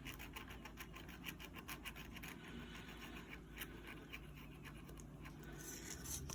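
Faint, rapid scratching strokes of a small hand tool scraping dried, melted-in leather strap residue off a watch case around the lugs.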